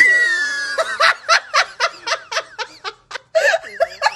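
A person laughing hard in quick high-pitched bursts, about four a second, opening with a long high squeal just after a sharp knock.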